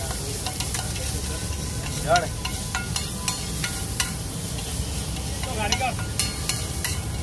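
Egg mixture sizzling on a large flat steel griddle while a steel spatula scrapes and clicks against the metal. A short wavering squeak sounds about two seconds in, the loudest moment, and again near six seconds.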